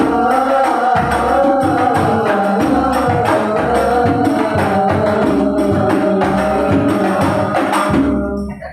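Sholawat devotional singing with frame drums beating a steady, even rhythm beneath the voices; the music stops near the end.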